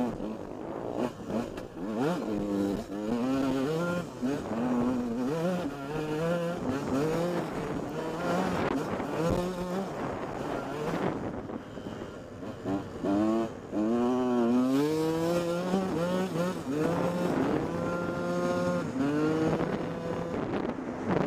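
125cc two-stroke dirt bike engine ridden hard: its pitch climbs steeply and drops again and again as the throttle is worked and the gears change, with a couple of seconds held near steady revs near the end.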